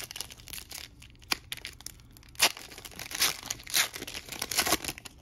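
Foil wrapper of a Panini Chronicles trading-card pack being torn open by hand: crinkling with sharp crackles, the loudest about two and a half seconds in.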